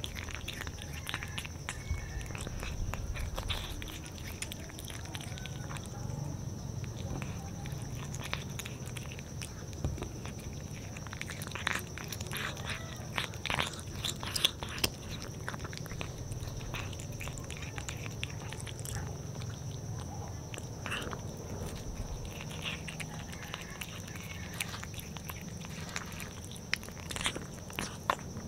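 A calico cat eating raw fish: irregular chewing and biting clicks, coming thickest in two spells, about halfway through and near the end.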